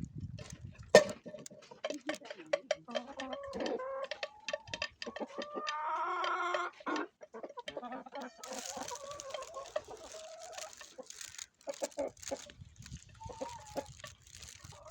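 Domestic chickens clucking, with a longer call around the middle and many sharp clicks and taps throughout. The loudest is a single sharp click about a second in.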